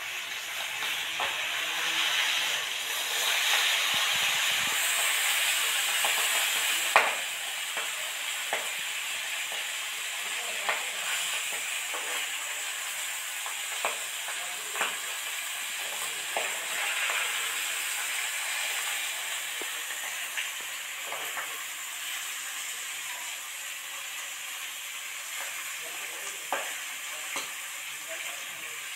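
Masala-coated surmai (kingfish) pieces frying in oil in a steel kadhai, a steady sizzle that is loudest for the first several seconds, with a metal spatula clinking and scraping against the pan every second or two as the pieces are turned. A sharp clank stands out about seven seconds in.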